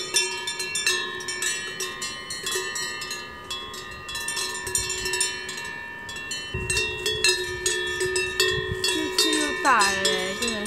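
Cowbells on grazing cows clanking irregularly, their tones ringing on between strikes. Near the end a call slides down in pitch.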